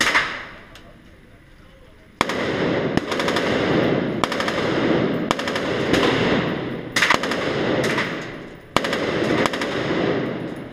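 Single gunshots on an indoor shooting range, about ten of them at uneven spacing from under a second to about two seconds apart. Each shot is followed by a long echo off the range walls.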